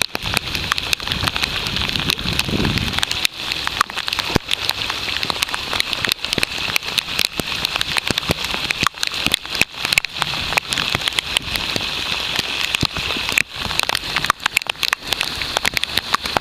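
Steady rain falling on the sea, a constant hiss with many sharp ticks of individual drops. A low rushing sound sits under it for the first three seconds.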